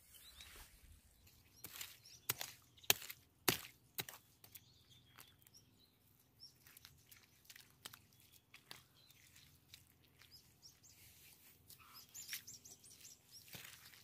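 Short-handled hand hoe striking and scraping in wet mud and weeds: a handful of sharp knocks in the first few seconds, then quieter, scattered scrapes and rustles. Birds chirp faintly in the background.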